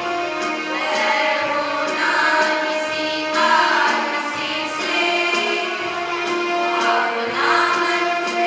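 A song with a group of voices singing over musical accompaniment, with a steady low beat about every one and a half seconds.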